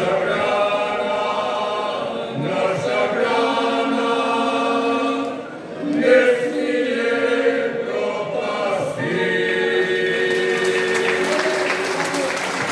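Men's vocal group singing unaccompanied in close harmony, ending on a long held chord. Applause breaks out near the end, over the last chord.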